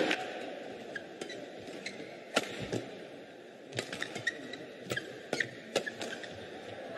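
Badminton rally: a shuttlecock struck sharply by rackets, a few cracks spaced a second or less apart in the second half, over the steady murmur of the sports hall.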